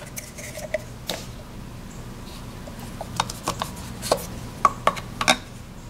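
Plastic Play-Doh cans being pulled out of and pushed into hollow plastic Can-Heads figures: a string of short clicks and knocks, most of them bunched in the second half.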